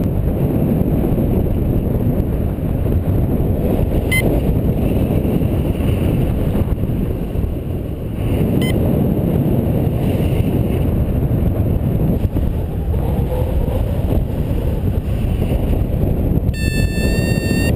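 Airflow buffeting the microphone in paraglider flight: a steady rumbling rush of wind. Near the end a high electronic tone sounds for about a second.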